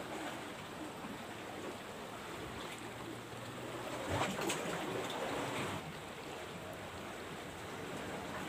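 Small sea waves washing against a rocky shore as a steady wash of water noise, with a louder surge lasting about two seconds midway.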